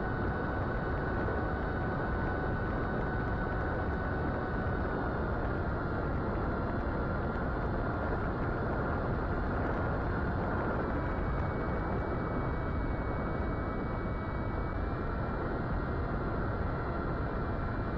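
Steady rush of wind over the onboard camera of a small FPV plane in flight, with the thin, steady whine of its Brotherhobby Avenger 2808 brushless motor and 8-inch propeller at cruise throttle. The whine's pitch shifts slightly a little past halfway, and a second, higher whine joins it.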